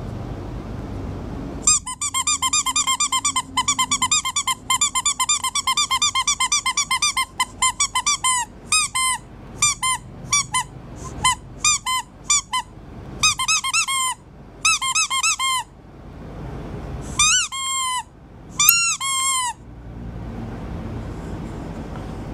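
A hand-squeezed squeak toy giving rapid short squeaks that rise and fall in pitch, about six a second for several seconds, then in short clusters separated by pauses before stopping.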